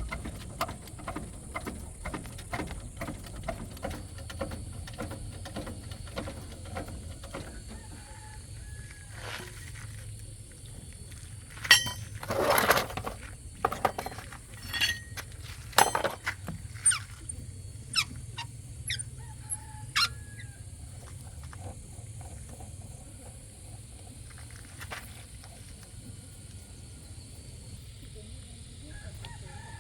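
A run of sharp knocks and clanks, roughly one a second through the middle, after a stretch of lighter clicking, over a steady low hum.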